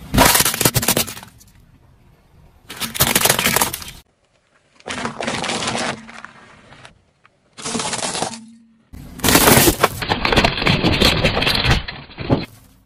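Brittle objects cracking and crunching as a car tyre rolls over and crushes them, in five separate bursts, the longest near the end.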